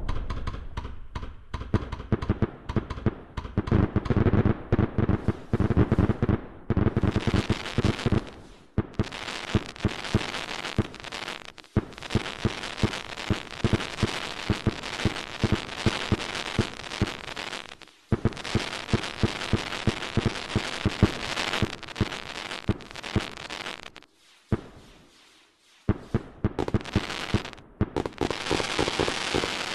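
Fireworks going off in a dense, rapid crackle of many small pops, with a few short breaks and a longer lull about three-quarters of the way through before the crackling starts again.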